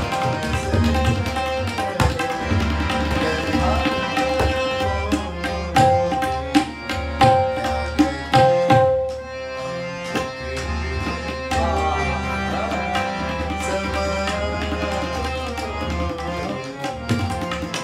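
Ghazal music with tabla drumming under held melodic notes, the music thinning briefly about halfway through.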